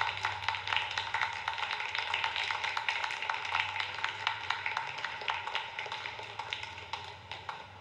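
Fast, continuous sharp taps, several a second, over a steady hum, fading a little near the end.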